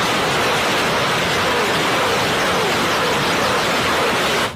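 A loud, steady rushing hiss, even and unpitched, that cuts off suddenly near the end.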